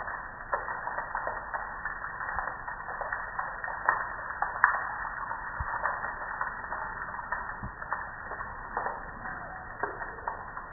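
Water splattering and dripping off a gas grill onto wet concrete: a steady spatter with many small irregular drips and taps, a couple of louder ones about four seconds in.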